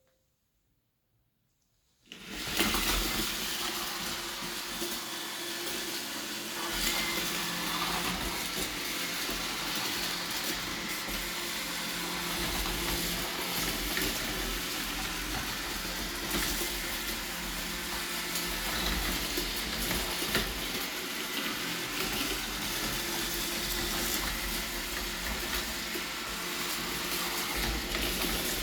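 Near silence for about two seconds, then a robot vacuum cleaner starts and runs steadily in spot-cleaning mode.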